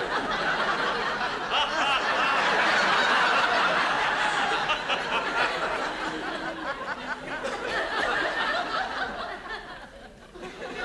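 Studio audience laughing: a long wave of laughter that swells in the first seconds, holds, and dies away near the end.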